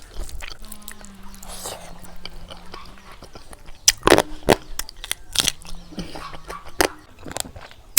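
Close-miked chewing and biting of pork curry with rice: wet mouth smacks and sharp clicks, several louder ones in the second half.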